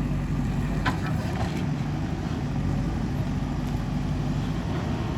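An earthmoving machine's diesel engine running steadily, with a couple of brief clinks about a second in.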